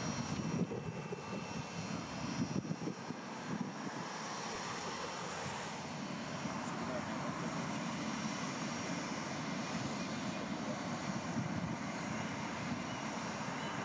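Jet airliner engines running, a steady drone with a faint high whine above it.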